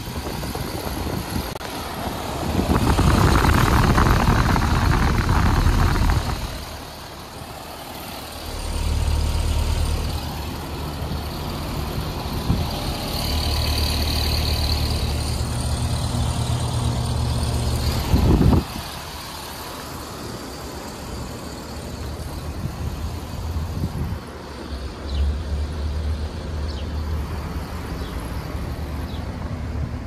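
Carrier Comfort central air conditioner condenser running: a steady low hum from the compressor and fan. A louder rushing noise from about three to six seconds in, and a single brief knock about eighteen seconds in.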